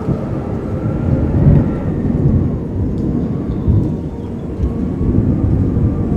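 Underground tunnel ambience: a deep, steady rumble that swells and fades in waves, with a faint wavering whine above it.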